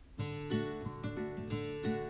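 Background music: acoustic guitar strumming chords, coming back in just after the start following a brief fade.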